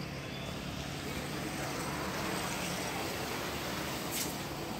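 Steady outdoor background rush, even and unbroken, with a faint click about four seconds in.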